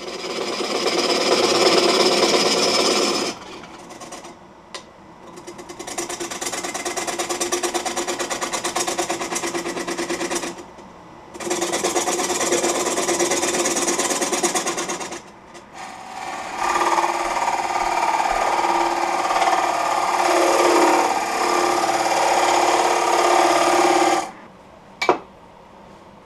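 A gouge cutting the outside of a spinning Russian olive bowl on a Laguna Revo 12/16 wood lathe, with a rapid, rasping chatter. There are four cuts of a few seconds each, separated by short pauses where the lathe runs more quietly, and a single sharp tap near the end.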